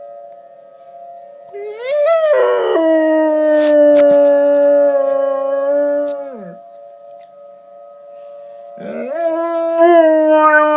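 A dog howling, two long howls: the first rises about two seconds in, holds for about four seconds and falls away, and the second starts near the end with a wavering pitch. A steady tornado siren tone sounds underneath, which the dog is howling along to.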